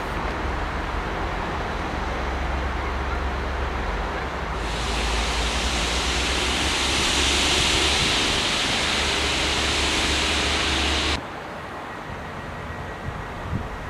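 A diesel train's low, steady engine rumble as it moves away along the far line. About four and a half seconds in, a loud steady hiss joins it. Both cut off abruptly about three seconds before the end, leaving a quieter station background.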